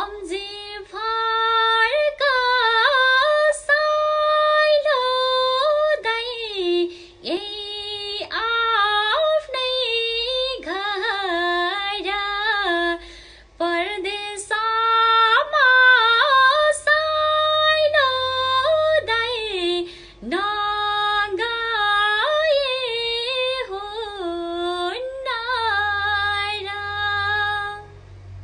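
A woman singing a Nepali song solo and unaccompanied, with long held notes and quick ornamental turns, breaking briefly between phrases.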